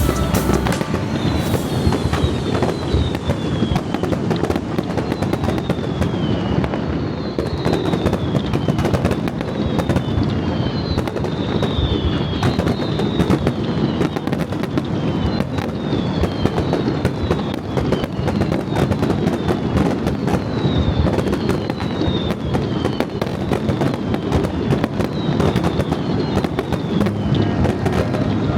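Fireworks display going off in a dense, continuous barrage: rapid crackling over a steady low rumble of bursts. Short falling whistles recur throughout.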